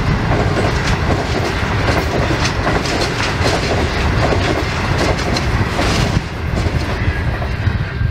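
Stainless-steel passenger carriages rolling past on the rails, their wheels clicking rhythmically over the rail joints over a steady rumble. The clicking thins out and the sound drops away about six seconds in as the last carriage goes by.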